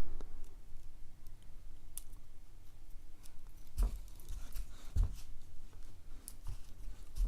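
Scattered small clicks and taps of tools and metal parts being handled while a Schlage padlock is taken apart, with two soft knocks about four and five seconds in.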